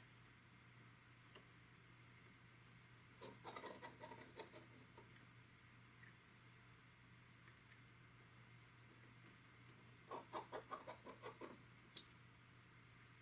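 Small clicks and taps from handling tiny tools and parts at a repair bench: two quick runs of clicks, each about a second and a half long, and a single sharper click near the end, over near silence.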